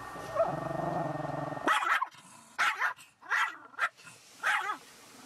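A Shih Tzu barking inside a car, about five short sharp barks in quick succession. They start right after a steady mechanical hum stops abruptly, under two seconds in.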